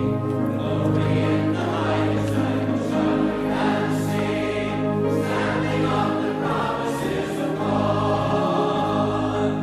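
A choir singing a hymn in slow sustained chords over a steady low bass accompaniment.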